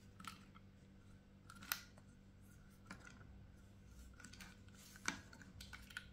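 Faint, scattered clicks and small snaps of a utility knife blade cutting through the plastic hull of a used 12-gauge shotgun shell, with a few sharper snaps spread through.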